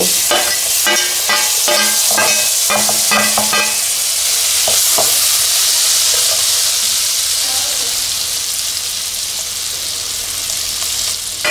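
Chopped tomatoes sizzling hard as they land in hot spiced ghee in a kadai and are stirred with a steel slotted spoon. For the first four seconds or so, ringing metal clinks of the spoon against the steel plate and pan as the tomatoes are scraped in; then a steady sizzle that eases off a little toward the end.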